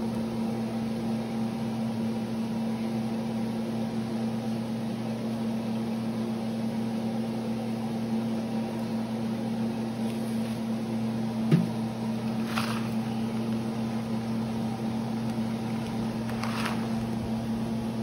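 Steady electric hum of a running kitchen appliance motor, with a low tone and its overtones. There is one sharp click about eleven and a half seconds in, and two brief scrapes after it.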